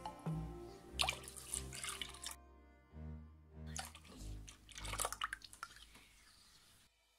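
Liquid sloshing and dripping in a bowl in two spells as a custard mixture is stirred with a silicone spatula and milk is poured in, over background music.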